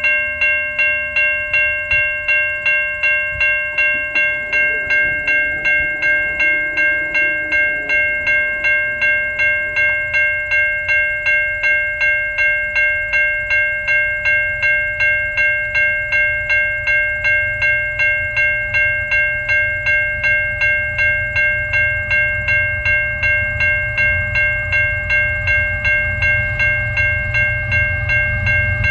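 Railroad grade-crossing warning bell ringing at about two strikes a second, triggered by an approaching train. From about 24 seconds in, the low rumble of the oncoming GE ET44AC diesel locomotives grows beneath it.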